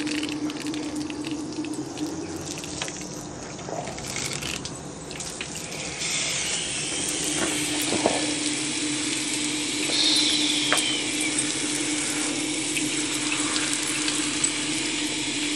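Running water spraying steadily over two muddy dogs as they are washed down, growing louder about six seconds in, over a steady low hum.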